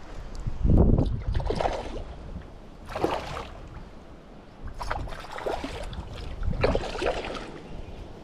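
Creek water splashing in irregular bursts, with a low thump about a second in.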